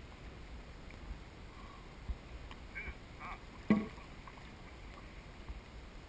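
Dragon boat paddles stroking through lake water, with wind rumbling on the microphone. One short, sharp sound stands out about three and a half seconds in.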